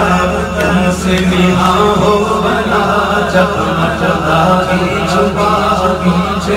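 A man's voice chanting a naat, an Urdu devotional song of blessings on the Prophet, in long held melodic lines, amplified through a microphone and loudspeakers over a steady low hum.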